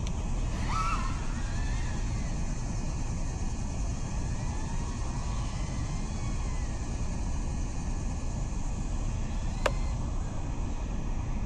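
Five-inch FPV racing quadcopter in flight: its motors and propellers whine, the pitch gliding up and down with the throttle, over a heavy rush of wind. A single sharp click near the end.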